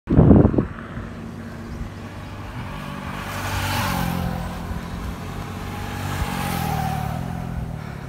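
A motor vehicle's engine running steadily, its pitch stepping up and down, with two swells of rushing noise about halfway through and near the end. A loud short knock comes at the very start.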